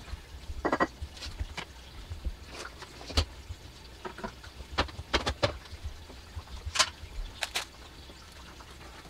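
Irregular clicks, knocks and clinks of bottles, jars and plastic containers being picked up and set down on a kitchen countertop, with a few brief rattles.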